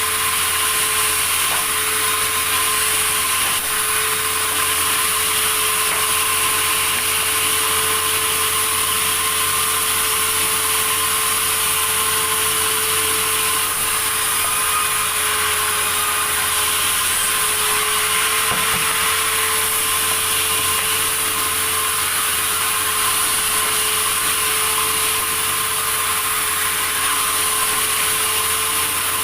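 Sawmill saw running steadily through wood, a continuous machine noise with a steady tone running through it.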